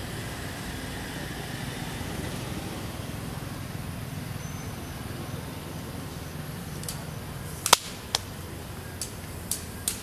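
Low, steady outdoor rumble, with a handful of sharp clicks in the last few seconds, the loudest about three quarters of the way through.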